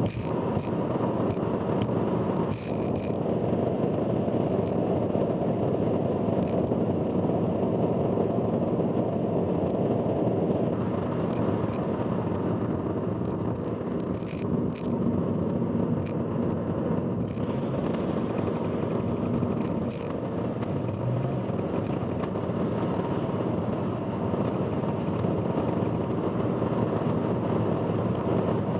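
Steady road and driving noise of a car on an expressway, heard from inside the car, with scattered short clicks.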